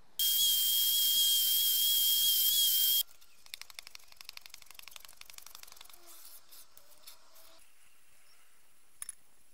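A high-speed rotary tool runs with a steady whine and loud hiss for about three seconds, then cuts off abruptly. After it, a spreader scrapes rapidly back and forth, mixing body filler on a card, with a couple of light clicks near the end.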